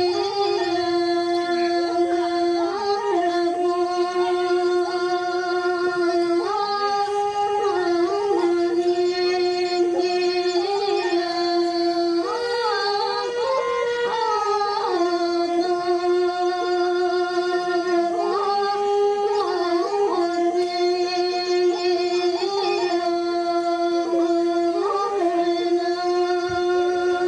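Background music: a melody of long held notes that steps between a few pitches every second or two, at a steady level throughout.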